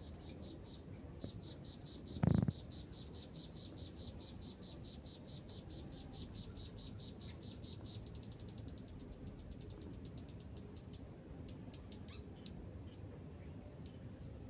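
A high, rapid pulsed trill from a small calling animal, going on steadily until about eleven seconds in and then breaking into scattered pulses. A short low thump a little over two seconds in is the loudest sound.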